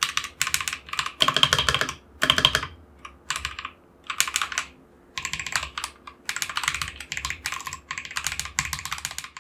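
Fast typing on a mechanical keyboard fitted with Akko Vintage White linear switches: bursts of rapid key presses and bottom-outs with brief pauses between runs. The heaviest strokes come between one and three seconds in.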